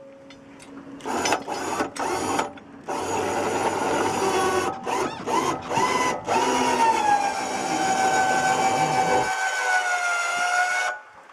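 Electric boat-hoist motor running in a few short starts, then steadily for about eight seconds with a whine that sinks slightly in pitch, before stopping suddenly near the end.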